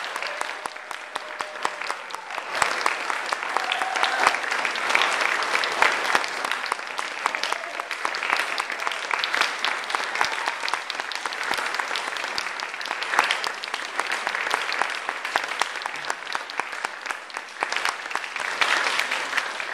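Audience applauding: dense, steady clapping from a full room, growing louder near the end.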